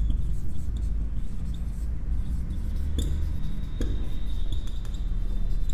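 Marker pen writing on a whiteboard: a few faint taps and a thin squeak in the second half, over a steady low hum.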